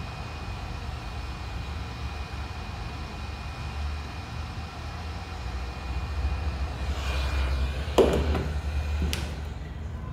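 Hot air gun blowing steadily, with a low rumble and a faint high whine, heating the glued earpiece and proximity-sensor area of an iPhone 6S screen to soften the adhesive. Near the end there is a sharp knock and a lighter click a second later, and the hiss dies down.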